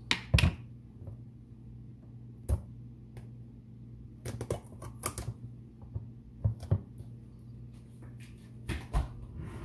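A bottle of kalbi sauce marinade being shaken and handled: irregular sharp clicks and knocks, several close together around the middle and more near the end, over a steady low hum.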